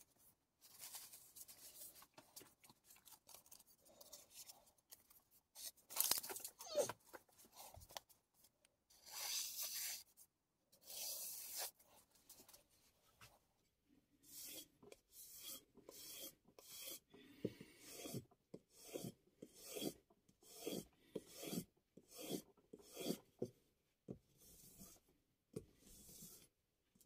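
Deba knife edge drawn along a strop in short, evenly paced rubbing strokes, about a dozen of them roughly a second apart in the second half. Before that come scattered faint brushing and rustling sounds.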